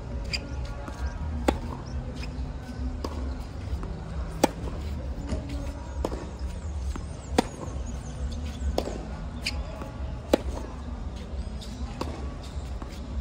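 Tennis baseline rally on a hard court: the near player's racket strikes the ball with a loud, sharp pop about every three seconds, with the fainter hits and bounces of the far player's returns in between. A steady low rumble runs underneath.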